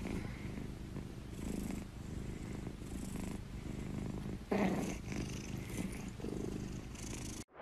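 Domestic long-haired ginger cat purring close up, a steady low rumble that swells and eases with each breath, with a louder swell about four and a half seconds in. It cuts off suddenly just before the end.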